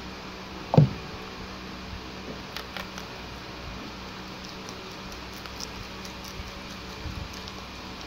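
Baby rabbits nibbling leafy herb stems, faint crisp chewing clicks now and then over a steady background hum. One loud low thump about a second in.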